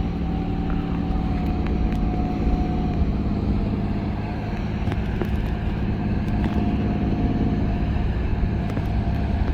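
Steady engine hum from the parasail tow boat below, holding one pitch throughout, over wind rumbling on the phone's microphone.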